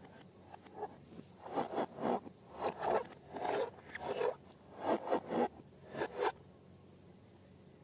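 Slime being handled, squeezed and stretched, in a run of short strokes that come in quick clusters and stop about six and a half seconds in.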